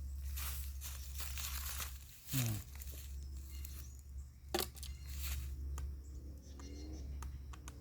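Dry sticks and rotten wood crackling and rustling as they are handled, with a sharp click about four and a half seconds in; no saw is running.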